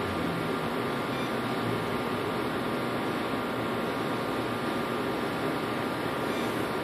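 A steady, even hiss with a faint hum, unchanging throughout.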